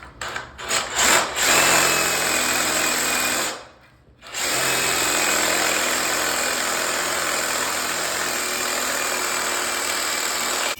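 Handheld electric power tool running at full speed in two long runs, with a brief stop a little under four seconds in, as it breaks into the grout and concrete around the toilet flange.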